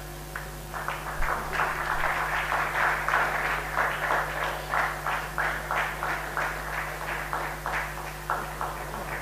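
A small crowd applauding by hand. Scattered claps build to full applause about a second in, then thin out to separate claps near the end.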